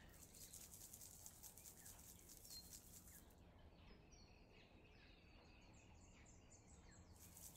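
Faint birdsong: a run of short, quick chirps and calls from about halfway through, over a soft high hiss.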